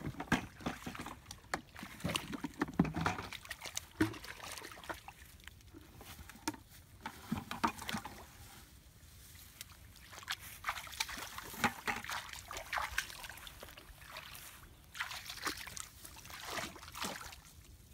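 Hands splashing and sloshing in a shallow muddy puddle while feeling for fish, in irregular bursts of wet slaps and sloshes.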